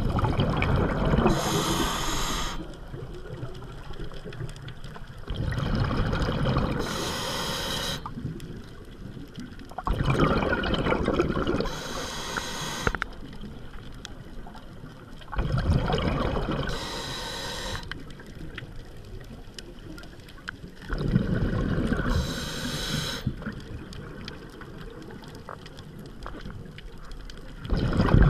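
Scuba diver breathing through a regulator underwater: each breath brings a hiss from the regulator and a rush of exhaled bubbles, repeating about every five to six seconds.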